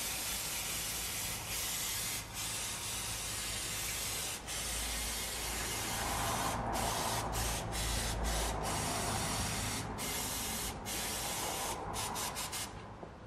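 Aerosol spray can hissing as it is sprayed onto the engine in long bursts broken by brief pauses, with quick short bursts around the middle and near the end.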